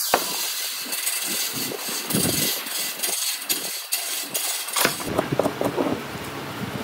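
A motor-driven power tool or machine running with a rough, uneven noise, with a sharp knock just after the start and another about five seconds in.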